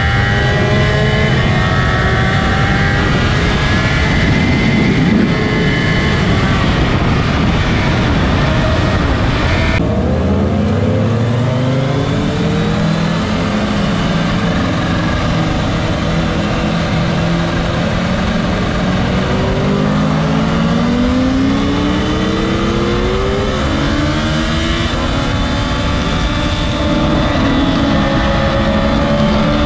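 Motorcycle engine heard from on board at a race track, with wind noise. The sound changes abruptly about ten seconds in; from there the engine climbs from low revs in a series of rising sweeps as it accelerates up through the gears.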